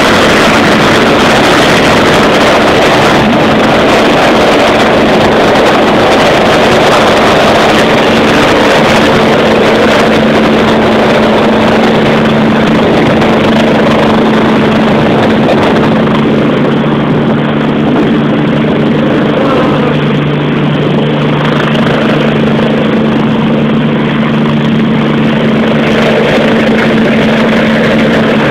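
Twin-turbine rescue helicopter running loud and steady, turbines and rotor together. A second low hum comes in about twelve seconds in.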